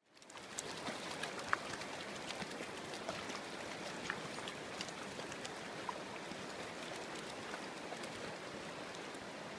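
Shallow, clear stream running over pebbles, a steady rush that fades in at the start, dotted with small sharp splashes and drips as dogs wade through the water.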